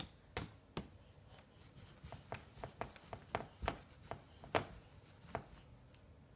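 Upholstered armchair with a wooden frame knocking and clicking as a toddler bounces on its seat while gripping the top rail: a run of irregular sharp taps, two or three a second, the loudest about four and a half seconds in.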